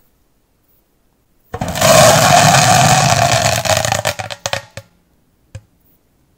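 A large crackling-ball firecracker going off inside a closed iron jerry can: after a silence, a sudden loud burst of dense crackling and hissing about one and a half seconds in, with a steady tone running through it, lasting about three seconds and breaking up into a few sharp cracks, then one last crack.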